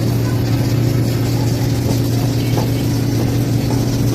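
Steady low mechanical hum of a running machine, even in level throughout.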